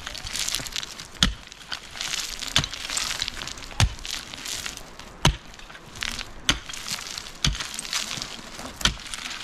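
Repeated heavy blows of a hand tool in construction work, about one every second and a half, with a rough rustling noise between the strokes.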